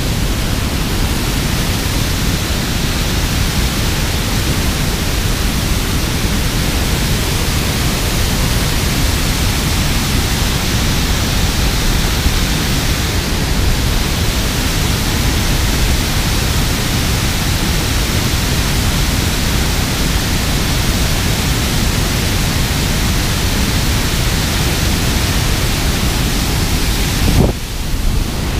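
Loud, steady rush of water pouring over a concrete dam spillway and churning in the outflow below it. A short bump near the end.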